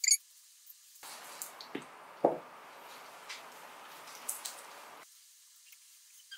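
Plastic-gloved hands mixing sticky seasoned rice in a glass bowl: faint squishing and rustling, with a couple of dull knocks about two seconds in. A brief sharp sound comes at the very start.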